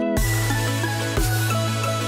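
Electronic background music: a sustained bass note with a drum hit about once a second and held synth tones above.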